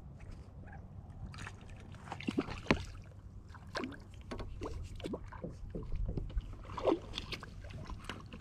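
Water and hull noise around a fishing kayak: a low rumble of water and wind, with a string of short squeaks and creaks.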